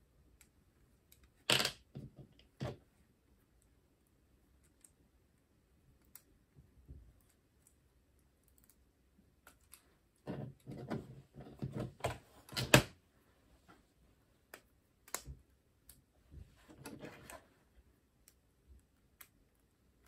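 Plastic LEGO bricks clicking and clattering as pieces are handled and fitted together during building, in scattered bursts with the busiest stretch about ten to thirteen seconds in.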